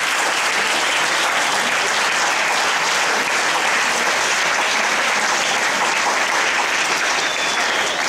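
Concert hall audience applauding, a dense, steady clapping that holds at an even level throughout.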